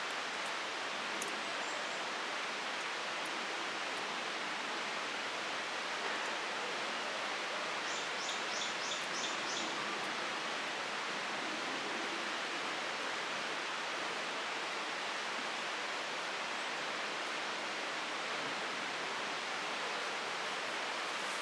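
Steady, even rushing outdoor noise, with a short run of about six quick, high, evenly spaced chirps from a bird about eight seconds in.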